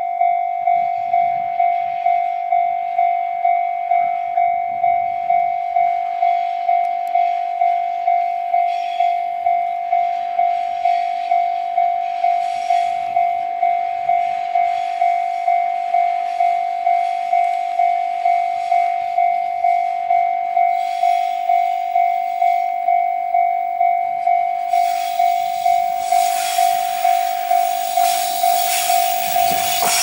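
Japanese level-crossing warning bell ringing steadily at about two strikes a second. From about 25 seconds in, a JR Hokkaido 789 series Super Hakucho electric limited express approaches, and its running and wheel-on-rail noise swells to pass close by at the end.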